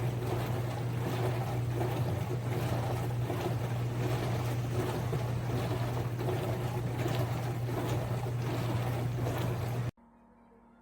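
Tank-type countertop dishwasher running a wash cycle: a steady low pump hum under the hiss and splash of spraying water. It cuts off abruptly near the end, leaving only a faint steady hum.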